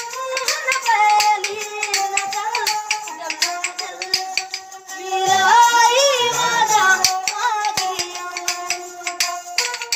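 Folk street music: a bowed string instrument plays a long sliding melody over a quick, steady clicking rhythm from hand-held clappers. Singing joins about halfway through.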